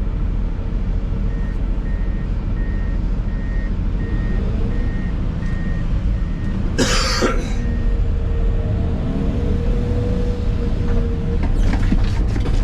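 Excavator diesel engine and hydraulics running steadily, heard from inside the cab. A backup-style alarm beeps at about one and a half beeps a second for several seconds, and a short, loud burst of noise cuts in about seven seconds in, followed by scattered clicks and knocks near the end.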